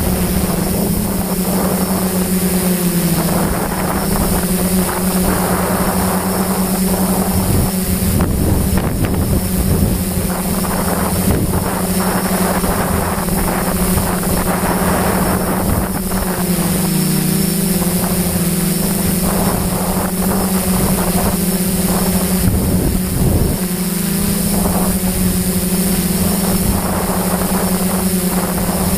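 Multirotor drone's motors and propellers humming steadily while it hovers and slowly turns, with wind noise on the microphone. The pitch of the hum wobbles briefly twice in the second half.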